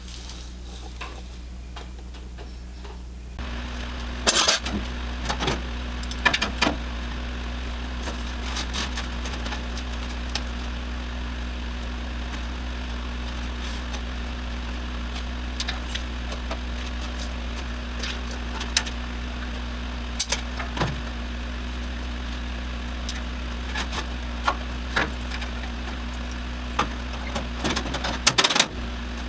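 A motor starts a few seconds in and runs steadily with a low hum, while scattered clicks and knocks sound over it.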